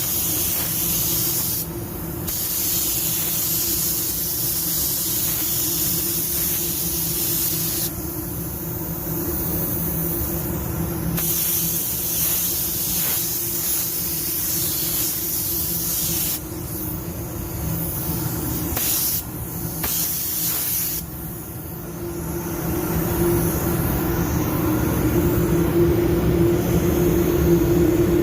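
Compressed-air paint spray gun spraying in passes, its hiss switching on and off in spells of a few seconds and stopping about three quarters of the way through. A steady low hum runs underneath.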